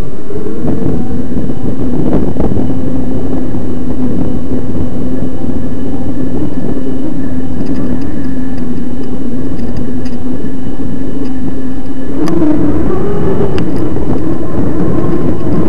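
Electric mountain bike's motor whining steadily at part power, under heavy rumble from wind and the ride on the microphone. The whine steps up in pitch about twelve seconds in, and a few sharp knocks come through from bumps.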